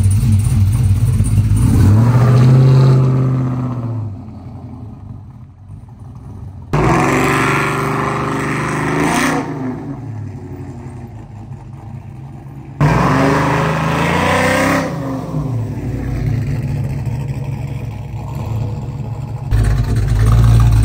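Chevrolet Silverado pickup's LS V8 engine revving as the truck pulls away and accelerates, rising and falling in pitch in about three runs, each breaking off abruptly.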